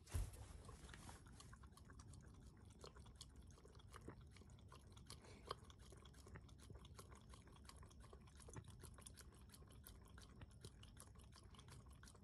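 A Shiba Inu lapping water from a bowl: a steady run of quick, small wet laps, faint, with one sharper knock at the very start. He is drinking because the boiled egg yolk has left his mouth dry.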